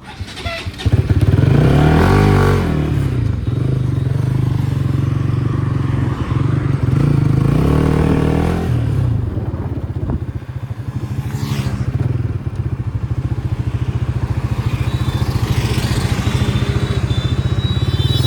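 Motorcycle engine starting about a second in, then running, with two revs that rise and fall, around two and eight seconds in.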